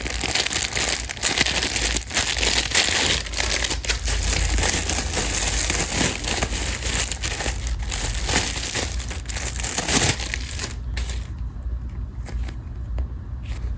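Plastic wrapper crinkling and crackling close by as a squishy toy is handled and unwrapped. The crackling thins out and drops away near the end.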